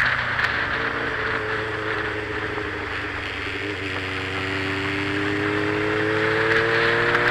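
Motorcycle engine heard from the riding bike, with wind rushing past. The revs ease off over the first few seconds, then climb steadily as the bike accelerates.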